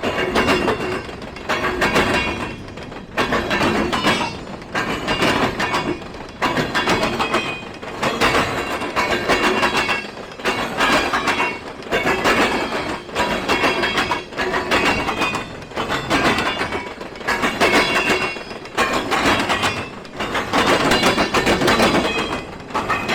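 Freight train rolling past close by, its wheels clattering over the rail joints in an uneven run of loud rushes every second or two, with a thin high ringing from the wheels in places.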